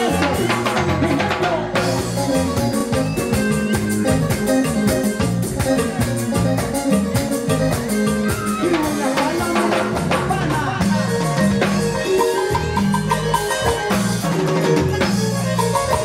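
Live band playing cumbia, with drum kit and percussion keeping a steady beat.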